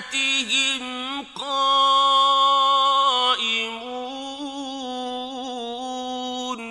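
A male Quran reciter chanting in the slow, ornamented mujawwad style, holding long drawn-out notes. There is a brief break about three seconds in, then a lower held phrase that stops at the very end.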